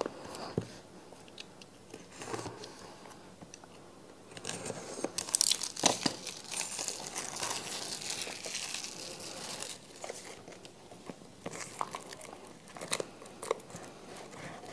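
Packaging of a smartphone retail box being handled and torn open: crinkling and tearing with scattered clicks and knocks, busiest from about four and a half to ten seconds in.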